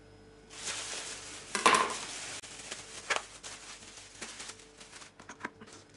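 Plastic packaging rustling and crinkling as a whole raw chicken in its bag is picked up and handled, with a sharp knock about a second and a half in as a knife is set down on the tabletop, and a few smaller clicks later.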